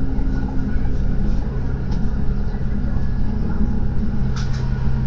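Inside a moving diesel railbus: a steady engine drone with a low hum and the rumble of the wheels on the track.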